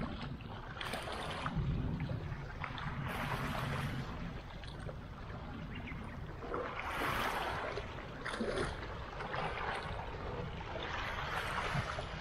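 Small sea waves washing and splashing against shoreline rocks, swelling and falling back in surges every few seconds.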